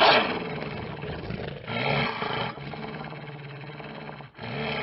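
Animatronic werewolf prop's recorded growling roars, in three swells, loudest at the start.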